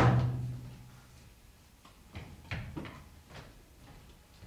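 Staffs and feet striking a stage floor: one heavy thump with a short low boom at the start, then several lighter knocks.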